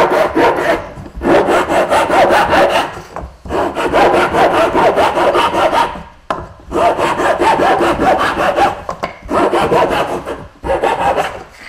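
A long metal file worked rapidly back and forth inside a hollow cane tube, rasping through the node membrane that closes the bore and roughing out the inside. It comes in several runs of quick strokes, broken by short pauses.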